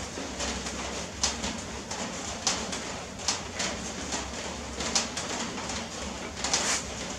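Puppy eating wet rice from a plastic dish: irregular sharp smacks and laps, one every second or so, over a steady low background noise.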